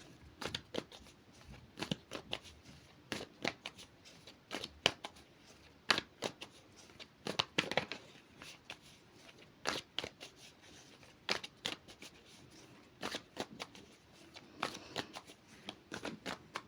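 A deck of oracle cards being shuffled by hand: short, irregular card flicks and rustles, quiet and without a steady rhythm.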